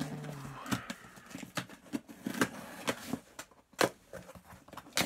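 A mail package being handled and opened by hand: scattered knocks and taps with light rustling, and one louder knock a little before four seconds in.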